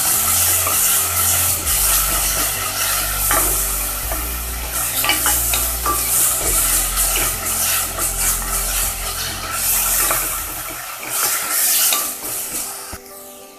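Ground spice paste sizzling in oil in an aluminium pressure cooker while a wooden spoon stirs it and scrapes across the pan bottom. The sizzling fades near the end.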